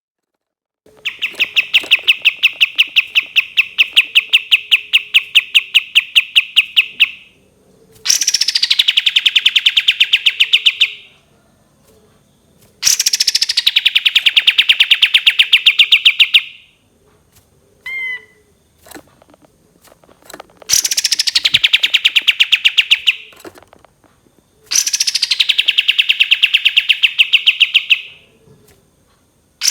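Kapas tembak bulbul singing its long rattling 'shot' song: five long runs of fast repeated notes, each lasting three to six seconds and most opening with a downward sweep, with short pauses between them and a brief chirp in one pause.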